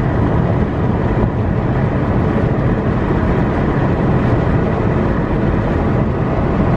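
Car cruising at highway speed, heard from inside the car: a steady, loud rush of road and wind noise with a heavy low rumble.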